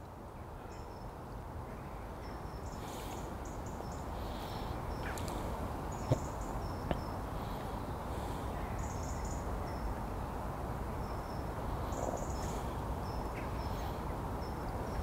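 Outdoor ambience with a steady background hiss and small birds chirping in short high bursts at intervals. Two light clicks sound about six and seven seconds in.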